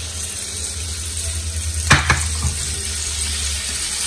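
Raw shrimp sizzling as they hit hot scallion oil in a nonstick frying pan, a steady hiss. A couple of sharp knocks against the pan about two seconds in as they are pushed around.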